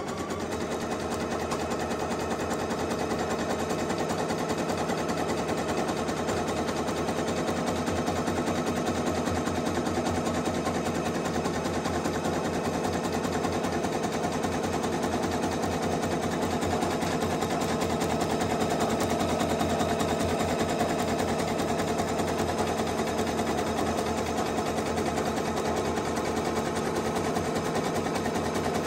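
ALFA domestic sewing machine running steadily at speed, sewing a zigzag stitch along the edge of two layers of cotton. It gives a fast, even chatter of needle strokes without a pause.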